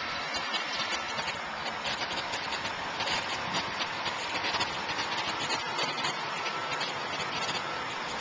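Footsteps tapping on a concrete sidewalk in a steady walking rhythm, over the continuous noise of city street traffic.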